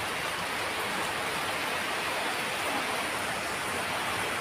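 Heavy rain from a storm, pouring steadily as an even hiss with faint scattered ticks.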